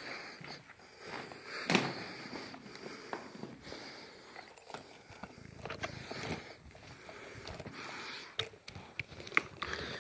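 Footsteps crunching irregularly on loose rock and gravel, with scattered clicks and cracks of stones shifting underfoot and one louder crunch about two seconds in.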